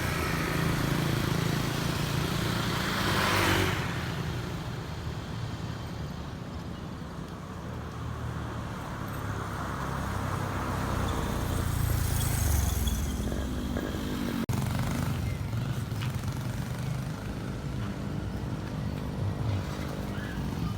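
Motor vehicle traffic: a steady low engine rumble, with vehicles passing by about three seconds in and again around twelve seconds.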